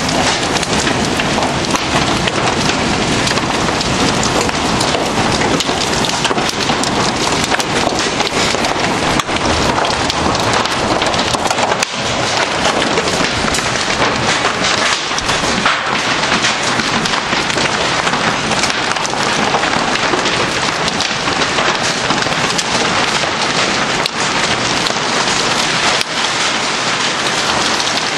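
Heavy thunderstorm rain mixed with hail pelting down, a dense steady hiss dotted with many sharp hits.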